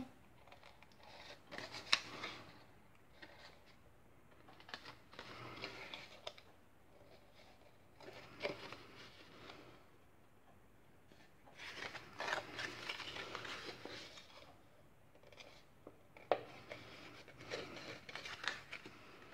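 Faint rustling and creasing of thin paper handled and folded into a small box, its glued flaps pressed together, with a few sharp little clicks from the paper.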